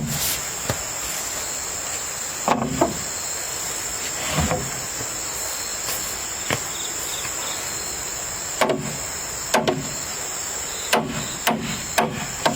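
Irregular knocks like blows on wood, a few spread out and then coming closer together in the second half, over a steady high-pitched insect chorus.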